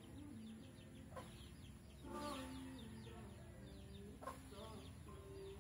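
A flock of young chicks peeping in many short, quick, falling chirps, with a hen clucking low underneath; faint overall, with two sharp ticks, about a second in and about four seconds in.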